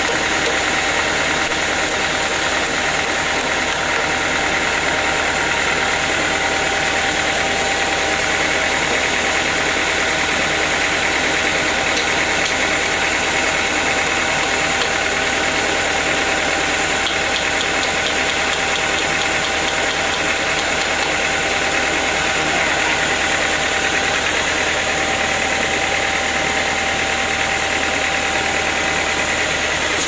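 Band sawmill machinery running steadily, a continuous loud mechanical drone with a steady high-pitched tone over it.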